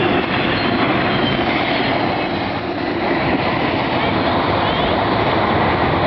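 A CSX train's cars rolling past with a steady, loud rumble of wheels on rail and a brief faint wheel squeal about halfway through.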